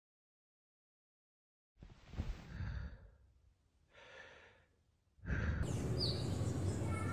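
Silence, then two long, breathy sighs from a person, the first louder than the second. About five seconds in, a steady outdoor background noise starts, with a short high chirp.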